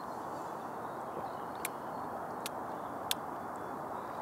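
Quiet, steady outdoor background noise, an even low hiss, broken by three faint short clicks in the second half.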